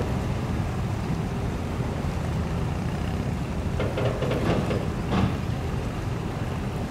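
Steady low rumble of a boat's engine on the river, with wind on the microphone.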